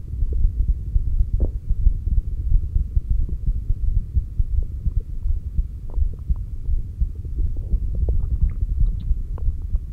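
Heartbeat heard through a stethoscope placed on the chest over the heart's apex: steady low thumping beats. A few faint short higher sounds are scattered over it, mostly in the second half.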